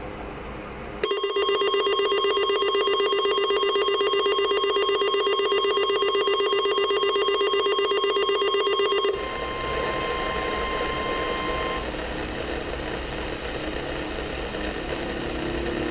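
Weather radio receiver sounding its alert alarm, a harsh, rapidly pulsing buzz, for about eight seconds. Under it runs a steady high warning tone from the broadcast, which carries on alone for a few seconds after the alarm cuts off, then gives way to radio hiss.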